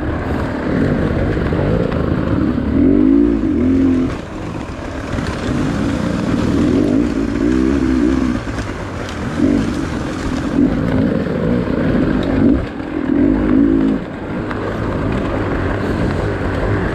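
Dirt bike engines revving up and down again and again as the throttle is opened and closed on a twisty trail, heard close from on the bike, with a second bike ahead.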